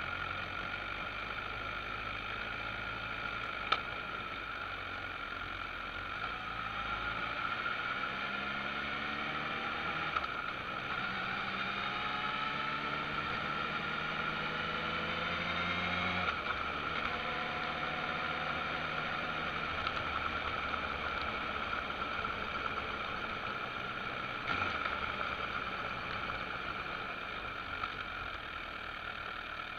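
Motorcycle engine pulling away and accelerating, its pitch rising twice with gear changes about ten and sixteen seconds in, then cruising steadily under wind and road noise.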